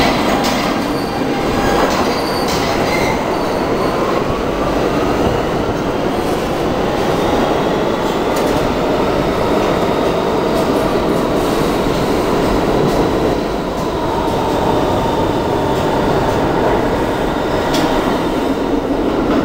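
New York City subway train running along the platform, a steady loud rumble of steel wheels on rail. Thin squealing tones from the wheels glide slowly up and down over it, with a few sharp clicks.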